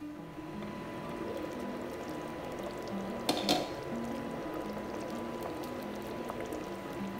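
Vegetable biryani bubbling as it simmers in a pot, under soft background music with a slow melody of held notes. A couple of brief clinks come about three seconds in.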